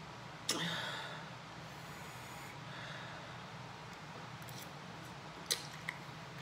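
A sudden breath about half a second in that fades over about a second, then two sharp clicks of a metal fork against a glass bowl near the end.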